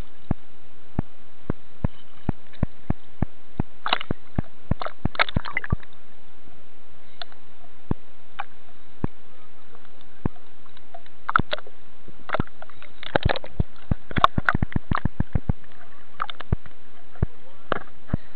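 Seawater sloshing and splashing against a waterproof camera case held at the surface, with irregular sharp clicks and taps over a steady hiss, crowding together in the second half.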